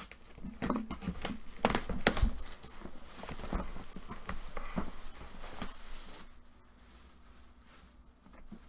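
Plastic shrink-wrap being torn and crinkled off a cardboard box, with sharp crackles and a few knocks of the box being handled. The crackling is loudest about two seconds in and dies down to quiet handling near the end.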